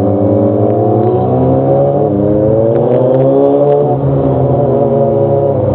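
Motorcycle engine accelerating. Its pitch rises for about three seconds, drops about four seconds in, and then holds steady.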